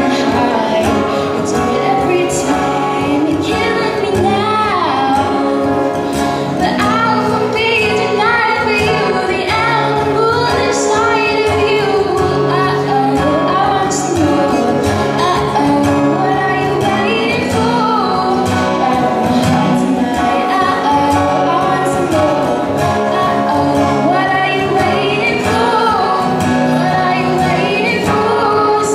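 A teenage girl singing a song into a microphone, accompanied by two acoustic guitars.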